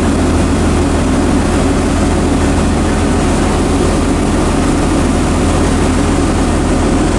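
Sightseeing boat's engine running with a steady low drone, under a rush of wind and water along the hull.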